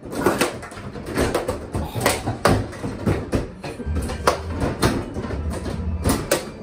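Bubble hockey table in play: the players' rods being pushed and spun, with rapid irregular clacks and knocks of the plastic players and puck. A low hum comes in about four seconds in.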